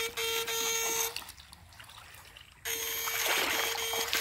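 Steady electric buzz of a homemade backpack electrofishing shocker powered up, with water trickling. The buzz cuts out about a second in and comes back sharply about a second and a half later, as the shocker is switched off and on.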